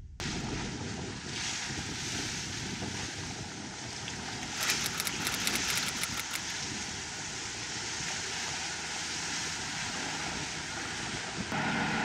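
Wind buffeting the microphone over water rushing along the hull of a sailing yacht under way, briefly louder about four and a half seconds in.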